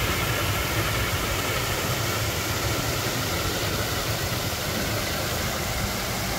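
Water cascading down a small tiered rock waterfall into a pond, a steady even rushing.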